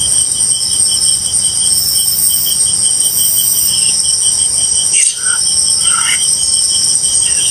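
Night insects calling: a cricket chirping steadily at about five chirps a second over a continuous high trill from other insects, with a short click about five seconds in.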